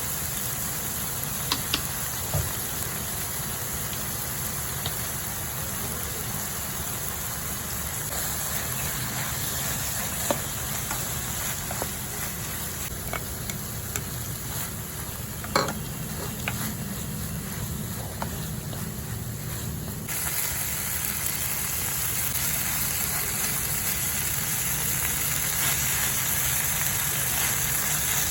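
Food sizzling in a hot frying pan while being stirred, with a few sharp clicks of a utensil against the pan; the sizzle gets louder about two-thirds of the way through.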